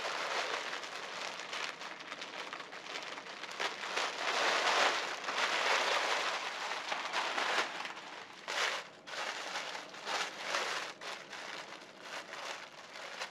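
Plastic packaging crinkling and rustling as a wetsuit is pulled out of its bag and unwrapped, with many small crackles, loudest in the middle and quieter, patchier handling near the end.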